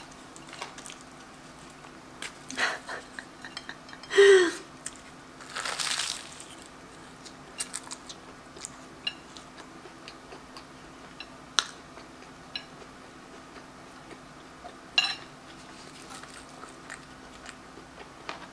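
Close-miked eating of a flaky puff-pastry apple pie: a few louder handling and pastry noises as it is lifted off the plate in the first six seconds, then chewing with many small wet mouth clicks.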